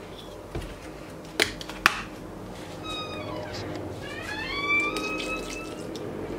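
Two sharp knocks about a second and a half in as a milk carton is set down on a stone kitchen countertop, followed a couple of seconds later by a few short squeaks that glide down and then up in pitch.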